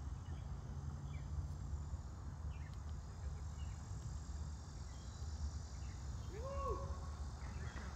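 Summer outdoor ambience: a steady high insect drone with scattered faint bird chirps over a low wind rumble on the microphone. About six and a half seconds in, a short rising-then-falling call stands out.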